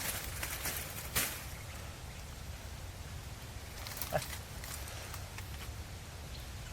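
Low rumble of wind on the microphone with scattered rustles and clicks in the first second, and one short grunt-like breath about four seconds in.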